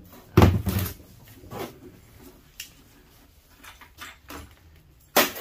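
Knocks and clicks of metal hand tools and parts being handled and set down on a plastic bin lid. There is a loud knock about half a second in, a few lighter taps, and two sharp knocks near the end.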